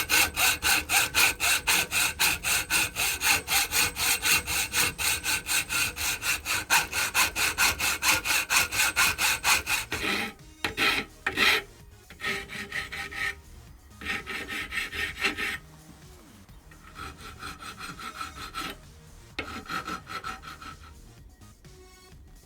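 Hand sawing through a bar: fast, even back-and-forth strokes, about four a second, for about ten seconds, then shorter, slower bouts of strokes as the cut is finished.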